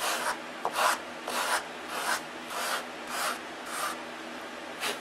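Sandpaper on a hand sanding block rubbing over a balsa wood wingtip in back-and-forth strokes, about two a second, with a short pause near the end.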